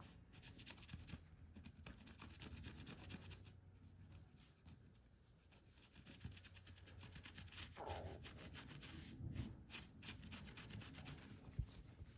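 Faint steady rubbing of a steel knife liner being hand-polished with Flitz metal polish, many quick back-and-forth strokes, buffing off rust spots.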